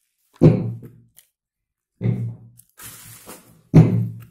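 Three dull thumps about a second and a half apart: a cardboard box is handled and set down.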